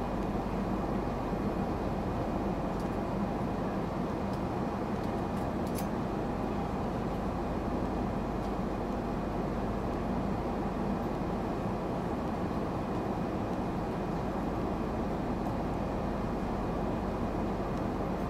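Steady cabin noise of a Boeing 777-200ER in flight: the even hum of the engines and airflow, with a few faint clicks.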